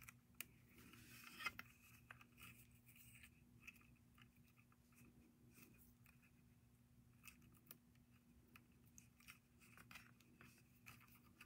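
Near silence with faint, scattered small clicks and rustles: a beading needle and thread being passed back and forth through beads strung on a bead loom.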